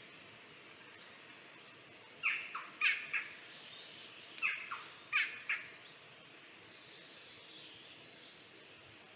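A bird calling: two runs of three short calls, each call falling in pitch, about two seconds apart, over a faint steady hiss.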